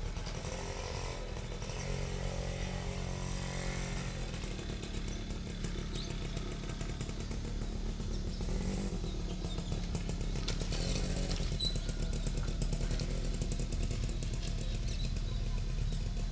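General Electric diesel-electric locomotive's engine running under load as it hauls a passenger train up a grade, a steady low rumble that grows louder as the locomotive approaches.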